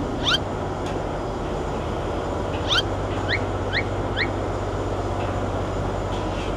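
Steady low drone of the passenger boat's engine, with a few short, quick rising chirps around the middle.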